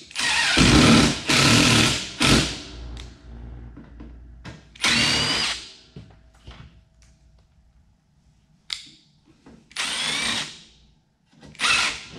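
Cordless drill run in about six short bursts, driving screws through layers of sheet-metal ductwork. The longest and loudest runs come in the first couple of seconds, and later runs have a rising whine as the motor spins up.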